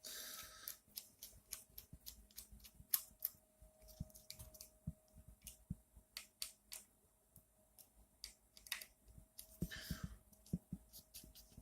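Faint scattered clicks and taps of acrylic 3D-printer frame parts being handled and fitted together, with a faint steady hum underneath.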